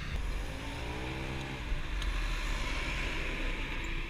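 A large cargo truck passing close by on the road, its engine drone rising and then falling in pitch as it goes past, over a low steady rumble.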